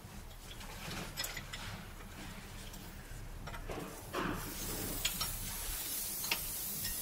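Scattered metal clicks and clinks of hand tools working on a trailer's brake hardware. About four seconds in, a steady hiss starts and keeps going.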